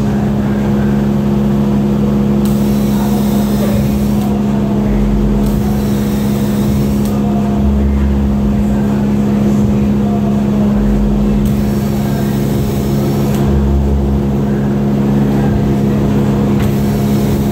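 Steady workshop machinery drone with an unchanging low hum, its pitch and loudness constant throughout. Short patches of high hiss come and go over it several times.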